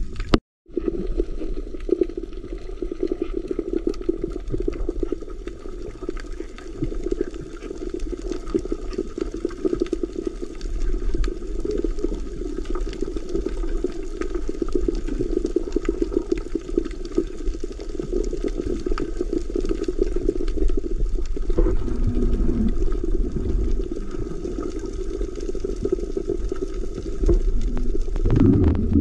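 Underwater sound as heard through a camera's waterproof housing: a steady, muffled rush of water with scattered faint clicks. It cuts out for a moment just after the start.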